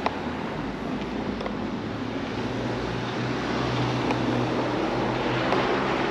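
A passing motor vehicle: a low engine hum sets in about two seconds in and grows slowly louder over steady outdoor noise.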